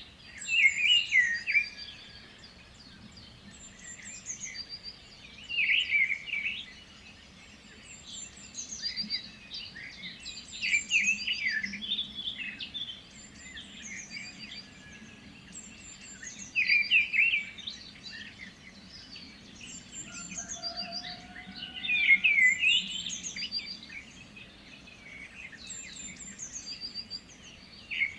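Birds singing: one loud song phrase comes back about every five seconds, five times, with fainter high chirps from other birds in between.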